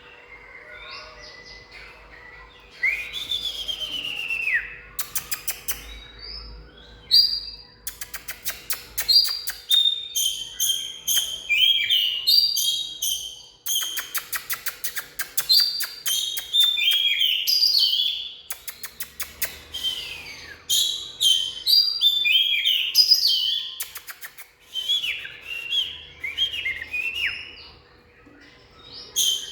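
Oriental magpie-robin singing: a long, varied string of whistled phrases, loud from about three seconds in, broken by fast runs of clicks.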